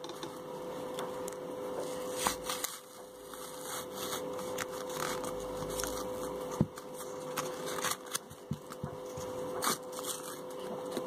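Hand-wrapped paper being unwrapped: rustling and crinkling with scattered small crackles and tears as the layers are pulled apart.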